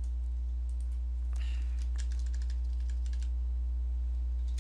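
Typing on a computer keyboard: a quick run of keystrokes in the first three seconds or so, over a steady low hum.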